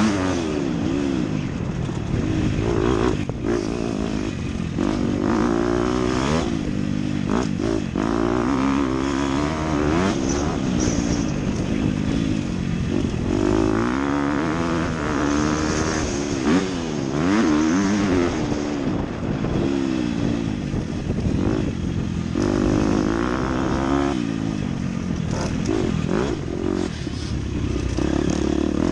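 Dirt bike engine ridden hard, its pitch climbing and dropping over and over as the rider works the throttle and gears.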